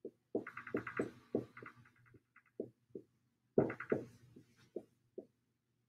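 Dry-erase marker writing on a whiteboard: a string of short strokes and taps, several with a fast, rattling squeak.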